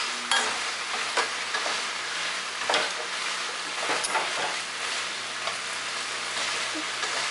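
A spoon stirring and knocking inside a stainless-steel pot, giving a few sharp metal clinks over a steady hiss.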